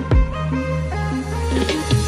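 Electronic background music with held notes and a deep kick drum that drops in pitch.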